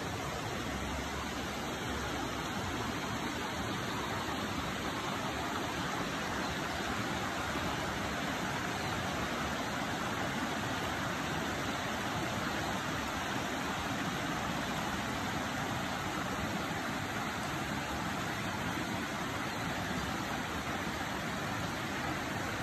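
Creek water running steadily over rocks and small cascades, a continuous rushing hiss.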